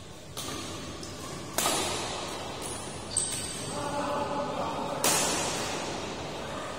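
Badminton rackets striking a shuttlecock in a doubles rally: four sharp hits one to two seconds apart, each echoing in the hall, the second and the last loudest. Players' voices call out between the third and fourth hits.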